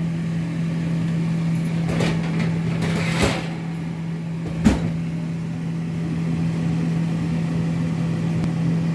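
A steady low hum runs throughout, with a few short knocks or clatters about two, three and four and a half seconds in.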